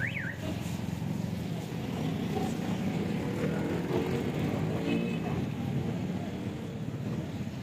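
Mutton liver cooking in a large iron tawa of bubbling oil over a wood fire: a steady, low bubbling rumble, with a short squeak right at the start.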